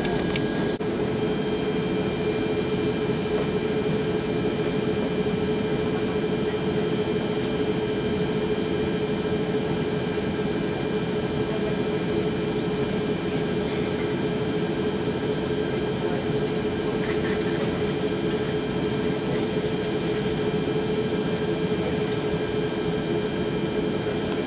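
Steady cabin drone of an Airbus A340-600 airliner with its Rolls-Royce Trent 500 engines running: an even rush of noise with a constant hum and faint higher whines, unchanging throughout.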